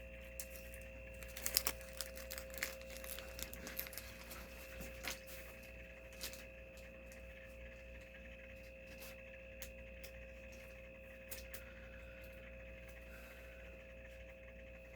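Light rustling and soft clicks of trading cards and plastic card sleeves being handled, busiest in the first several seconds and then sparse, over a faint steady electronic whine.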